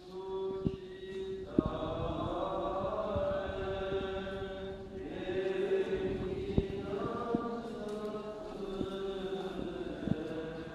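Romanian Orthodox liturgical chant: voices sing long held notes in slow phrases, with a short break about halfway through. A few sharp clicks sound over the chant.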